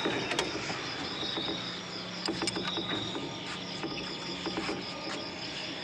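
Crickets chirping steadily, with a few light metallic clicks as an open-end wrench is fitted onto the bleed bolt at the diesel engine's fuel injection pump.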